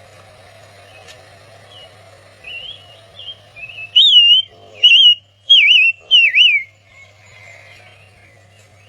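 A small songbird singing quick, warbling whistled notes, building to four loud phrases in the middle, over a faint steady hum.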